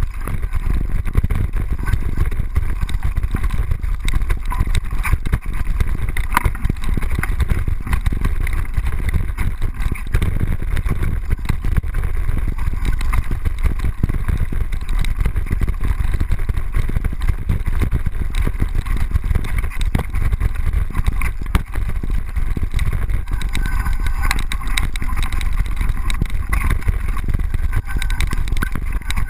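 Mountain bike riding dirt singletrack, heard through a GoPro mounted on the bike without its rubber anti-rattle insert: a loud, steady rumble with dense rattling all through, the camera housing shaking against its mount.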